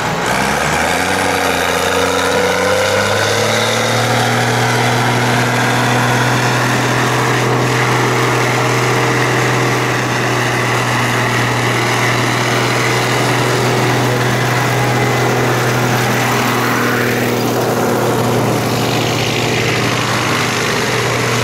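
Case IH 1455 XL tractor's six-cylinder diesel engine revving up over the first few seconds, then running steadily at full throttle under heavy load while it drags a weight-transfer pulling sled.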